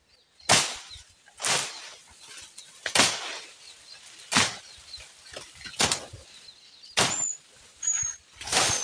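A hand-swung blade slashing through brush and undergrowth while clearing ground: a sharp swish roughly once a second, about eight strokes. A few faint high chirps sound near the end.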